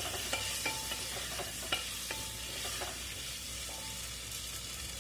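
Onion, potato and ground spices frying in oil in a pressure cooker pot, sizzling steadily, while a spoon stirs them and clicks and scrapes against the pot a few times.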